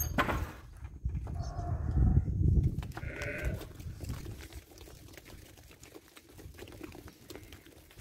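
Sheep bleating twice, a longer call about a second and a half in and a shorter one about three seconds in, as the flock of ewes and lambs runs out through a wooden gate. A low rumble and many small clicks of hooves on the dirt go on beneath the calls.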